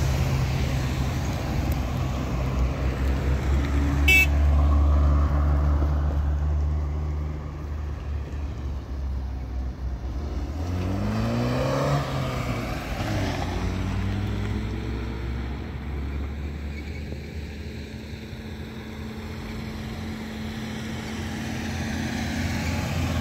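Car engine running steadily. A car passes close by about halfway through, its engine note rising and then falling.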